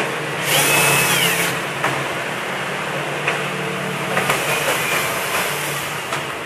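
Cordless drill-driver spinning briefly to back out the TV's rear-cover screws, its motor whine dropping in pitch as it stops, then a second shorter run around four seconds in, with a few light clicks in between.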